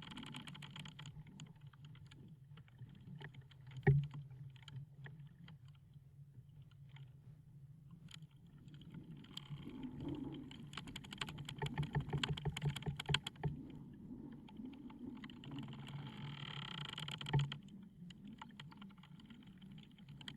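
Wooden ship's timbers creaking and ticking as the wood strains, with dense runs of rapid creaks and two sharp knocks, one about four seconds in and one near the end, over a steady low rumble.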